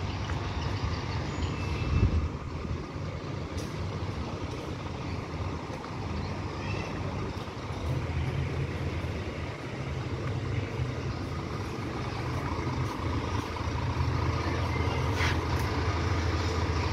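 Diesel engine of a large bus idling nearby with a steady low rumble that grows stronger in the second half, and a brief hiss about fifteen seconds in.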